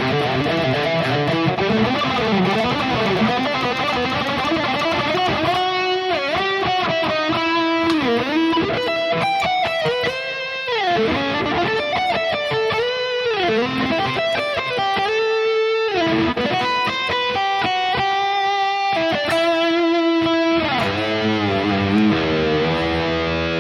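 High-gain distorted electric guitar played through a digital amp modeler: heavy riffing, then a single-note lead with string bends and vibrato, then back to low riffing near the end.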